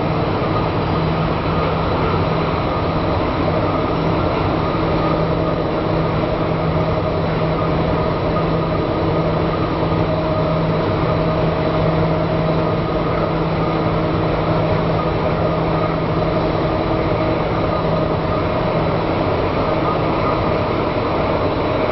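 A train in motion heard from on board: the steady drone of a Krupp BB304 diesel-hydraulic locomotive's engine, a low even hum, mixed with rail running noise.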